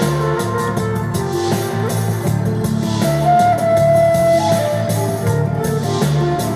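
Recorded music with a steady beat, a repeating bass line and guitar, played through a pair of JBL bookshelf speakers driven by a single-ended tube amplifier.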